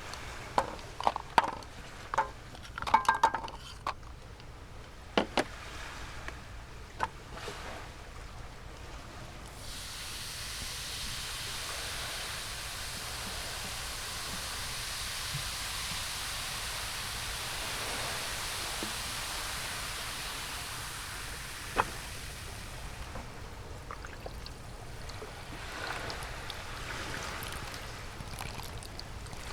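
Several sharp clinks of dishes or utensils, then water pouring or running in a steady hiss for about thirteen seconds, followed by a few lighter clinks.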